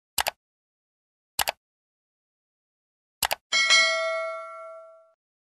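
Subscribe-button animation sound effect: three mouse clicks, each a quick press-and-release pair, about a second apart, then a bright bell ding that rings out and fades over about a second and a half.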